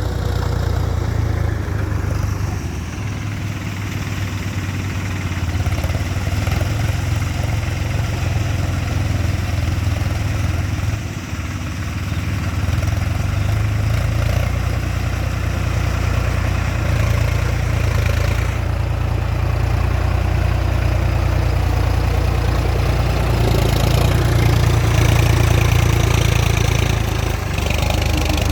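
Tractor engine running steadily with a deep, low hum, getting a little louder for a few seconds near the end.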